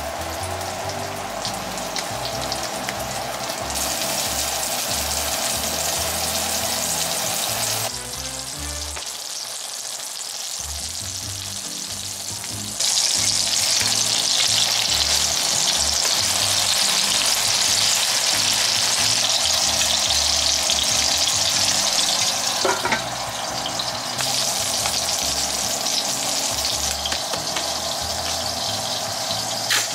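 Hamburg steak patties sizzling as they fry in oil in a frying pan, a steady hiss that is loudest for a long stretch in the middle, over quiet background music.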